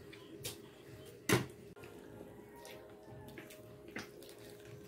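Quiet sounds of eating crispy pata by hand: soft mouth and chewing clicks, with one sharp knock about a second in. A faint steady hum runs beneath.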